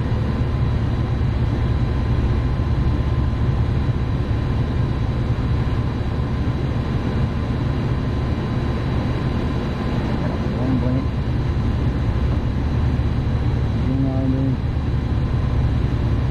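AAON rooftop HVAC unit's supply blower running, a loud, even rush of air over a low rumble with a faint steady whine. The fan is running on a bypassed control module.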